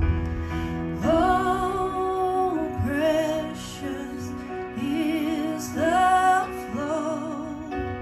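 A woman singing a slow, tender hymn. She holds long notes with vibrato in short phrases over sustained electric keyboard chords.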